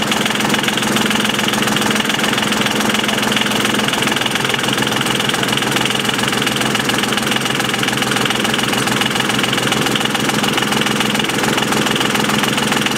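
Small diesel engine idling steadily while its mechanical fuel injection pump is being adjusted.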